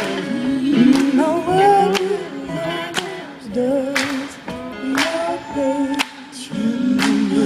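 Live band performance of a gospel song: several voices singing together with bending, drawn-out notes over a sharp beat about once a second, in a sparse, near a cappella arrangement.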